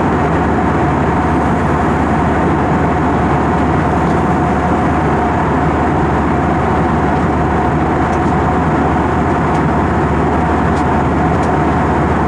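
Steady cabin noise of an airliner in flight: engine and airflow rumble heard from inside the passenger cabin, with a constant mid-pitched hum running through it.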